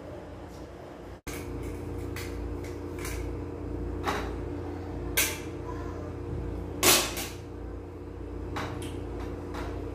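Cutlery clinking and scraping on a plate while eating, with several short sharp clinks, the loudest around the middle, over a steady low hum. A brief dropout about a second in.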